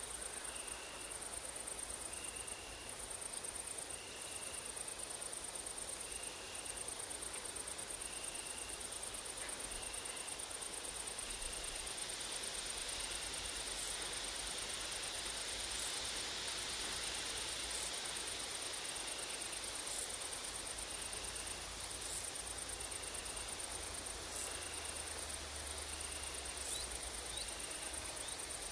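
Grasshoppers and crickets stridulating: a steady, very high-pitched buzzing trill with brief breaks, over a lower short chirp repeating about once a second. A wash of wind through the trees swells midway, and a low rumble comes in near the end.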